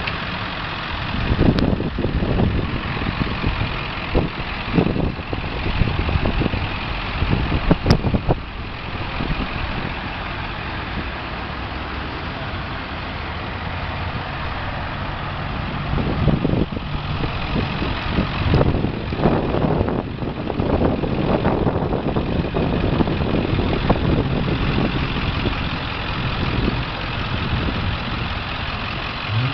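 A 1997 Ford F-450's 7.3-litre Power Stroke turbo-diesel V8 idling steadily, with uneven louder surges of rumble in the first several seconds and again midway.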